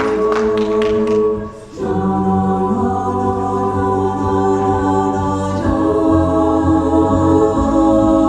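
An a cappella vocal group singing held chords in harmony. The sound briefly dips about a second and a half in, then a new chord comes in, and the chord changes again around six seconds in.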